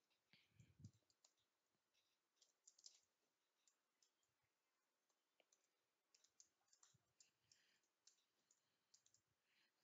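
Near silence with faint, scattered clicks of computer keyboard keys being typed.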